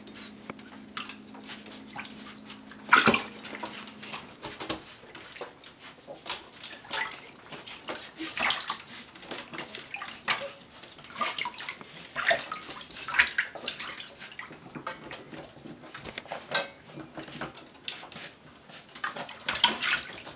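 Water splashing and sloshing in irregular bursts as two raccoons play in it, with a loud splash about three seconds in. A low steady hum runs under the first few seconds.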